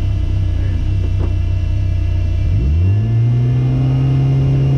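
Citroën rally car's engine heard from inside the cabin, idling, then revved up about two and a half seconds in and held at a steady higher rpm while the car waits at the stage start.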